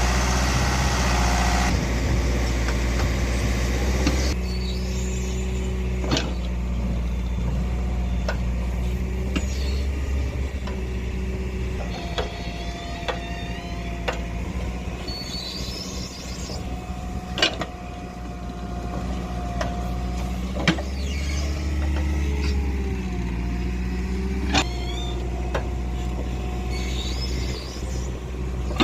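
Diesel engine of a JCB 3DX backhoe loader running steadily under hydraulic load, its pitch shifting now and then. Four sharp metal clanks of the bucket and high squeals are heard over it.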